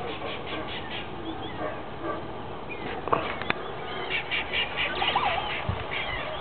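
Birds from a nesting colony, called weaverbirds by the uploader, calling in rapid chattering trains near the start and again from about four seconds in, over a steady background of jungle sound.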